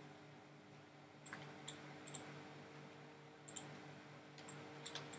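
Computer mouse clicking: about ten faint, sharp clicks, several in quick pairs, over a faint steady electrical hum.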